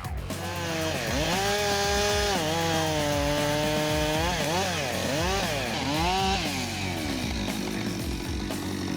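Chainsaw running and cutting through wood, its pitch sagging and recovering several times as the chain loads up in the cut, then settling near the end.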